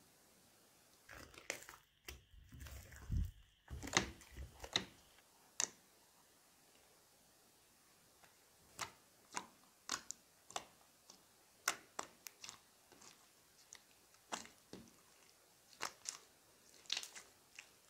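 Slime being worked: a spatula stirs it in a dish during the first few seconds, then hands stretch and squeeze it, giving scattered short sticky clicks and pops.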